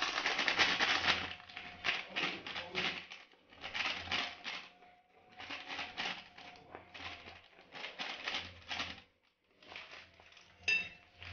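Gram flour being spooned from its packet into a bowl with a plastic spoon: rustling and scraping in a series of short bursts with brief gaps between them.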